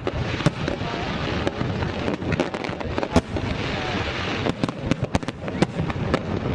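A fireworks display: many sharp bangs at irregular intervals over a continuous rumble and crackle of shell bursts.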